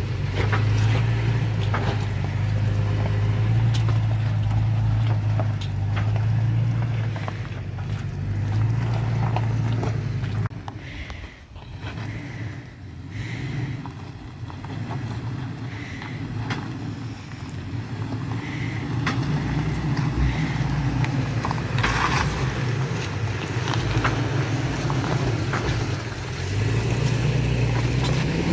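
A 2021 Toyota Tacoma TRD Off-Road's V6 engine running at a low crawl close by, with tyres crunching over loose rock. About ten seconds in it drops to a fainter, more distant hum, and near the end it is close and loud again.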